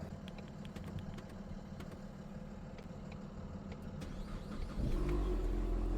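Ford Mustang's 2.3-litre EcoBoost turbo four-cylinder starting about five seconds in and settling straight into a steady idle, after a stretch of low rumble and a few clicks. It starts on a freshly programmed key, so the car has accepted the new key.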